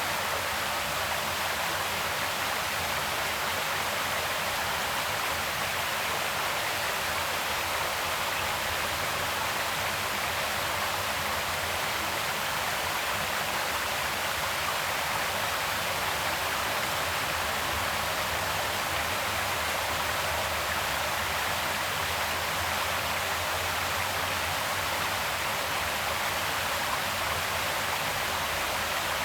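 Creek water flowing, a steady, even sound of running water.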